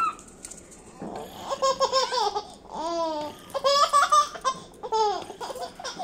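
Female Alexandrine parakeet chattering in a human-like voice, several short runs of babble and laugh-like calls with the pitch sliding up and down.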